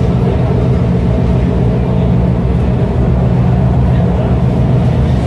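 Steady low rumble and hum of a Chengdu Metro Line 9 driverless train running, heard from inside the carriage.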